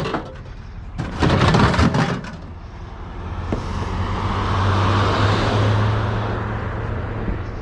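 A couple of loud knocks and clatter, then a car driving past close by, its engine and tyre noise swelling and fading over a few seconds over a steady low hum.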